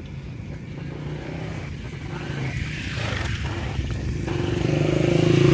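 A motorcycle engine running, getting louder near the end as it comes closer.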